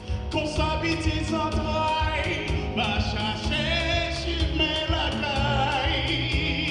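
Background music: a sung song with a steady beat.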